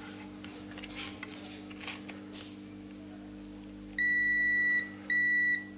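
Multimeter continuity buzzer beeping twice, a steady high tone of just under a second and then about half a second, as the probes are held across a power-supply MOSFET. The beep signals that the MOSFET is shorted.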